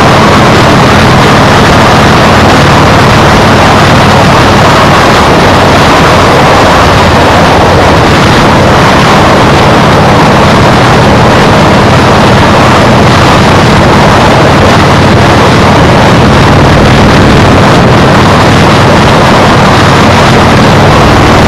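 Loud, steady wind noise buffeting an action camera's microphone while riding a bike at speed, with a faint steady hum underneath.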